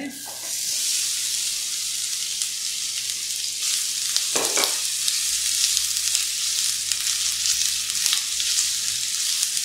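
Sliced red onions sizzling steadily in hot olive oil in a stainless steel pan, starting the moment they go in. A spatula stirs them, with light clicks and scrapes against the pan.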